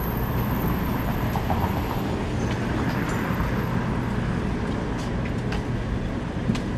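Downtown street traffic: a steady rumble of passing vehicles with a low engine hum, and a few light clicks in the second half.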